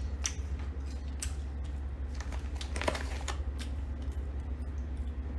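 Scattered light clicks and handling noises of small objects being worked by hand, with a louder rustle about three seconds in, over a steady low hum.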